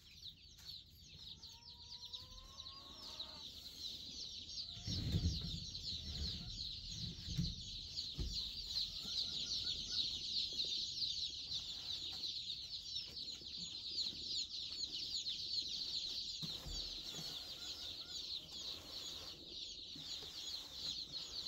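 A crowd of day-old chicks peeping nonstop, many high chirps overlapping into one continuous chatter. A lower chicken call comes about two seconds in, and the cardboard shipping boxes bump a few times around five to eight seconds in as they are set into the brooder.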